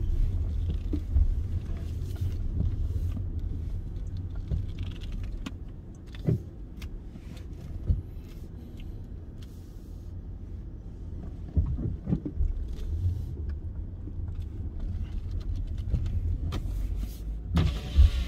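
Car moving slowly: a steady low engine and road rumble, with a few short knocks and clicks.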